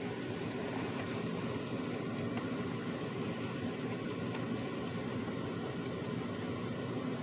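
Steady rushing noise of an automatic car wash heard from inside the car's closed cabin, muffled through the glass.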